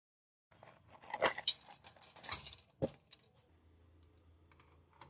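Perforated metal tray and metal box being handled: a couple of seconds of metallic rattling and clinking, ending in a sharp knock about three seconds in, then only a faint low hum with a few small ticks.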